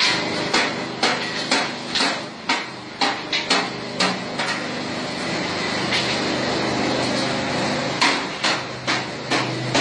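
Charcoal briquette extruder machinery running with a steady hum, over which come sharp knocks about twice a second. The knocks stop for a few seconds partway through and start again near the end.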